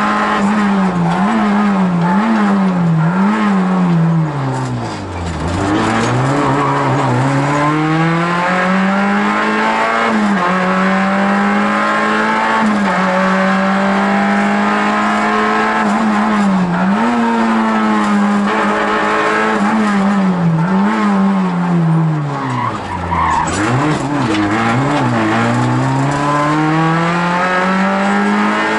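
Rally car engine heard from inside the cockpit, run hard along a stage. The pitch holds high for long stretches and is broken by quick dips and climbs. It falls deeply twice, about five seconds in and again near twenty-three seconds, then climbs back up.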